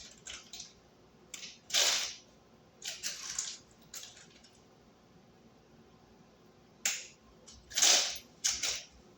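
Rummaging through a box of loose outlet screws: short scattered rattles and rustles with quiet gaps, the loudest about two seconds in and again near the end.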